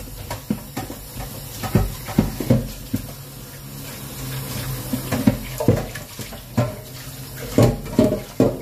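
Tap water running into a stainless steel kitchen sink while a metal pot is rinsed by hand, with several sharp knocks of the pot against the sink.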